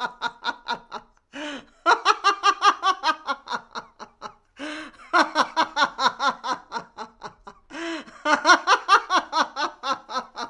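A woman laughing hard in long runs of quick ha-ha pulses, about six a second. The runs are broken by three gasping in-breaths, about one and a half, four and a half and eight seconds in.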